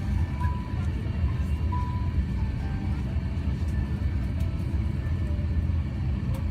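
Steady low rumble of an Airbus A350-900 cabin's air-conditioning while parked with the engines not yet started, with faint boarding music.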